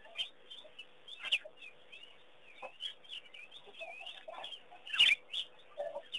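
Several wild birds calling, with quick chirps and short whistles scattered throughout and one louder, sharp call about five seconds in.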